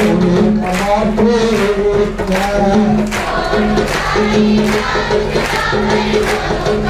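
Music: a song sung by a group of voices over instrumental backing with a steady beat.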